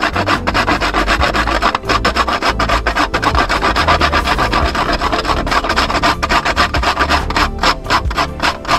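Quick back-and-forth rasping strokes of a small piece of spice being grated on the fine holes of a stainless steel box grater.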